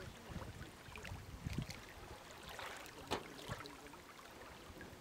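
Faint lapping and splashing of small lake waves, with scattered low bumps and a sharp click about three seconds in.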